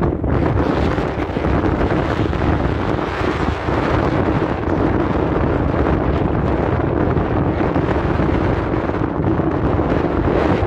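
Strong wind buffeting the microphone, a steady rushing noise with a low hum beneath it.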